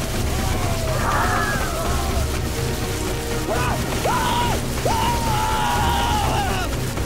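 Storm sound effects: a steady hiss of pouring rain with a pulsing low rumble of wind and waves, under dramatic music. Between about 3.5 and 6.5 s a few high held tones start sharply and slide down at their ends.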